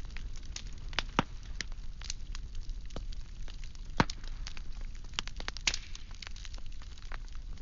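Firewood burning: irregular crackles and sharp pops over a low steady rumble, with a louder snap about four seconds in.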